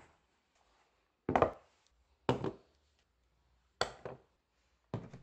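Camera gear set down piece by piece on a wooden desk: four short knocks about a second apart, two of them double.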